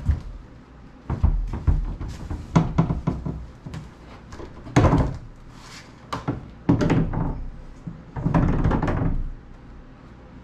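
Heavy wooden sliding barn door being handled on its overhead rail: a run of sharp knocks and thuds, then three longer rumbling stretches as the door is pushed along the track on its hanger wheels.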